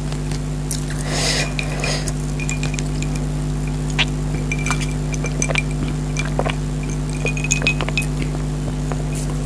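Eating utensil clinking and scraping against a plate in a run of short, irregular clinks, with a brief rustle about a second in, over a steady low hum.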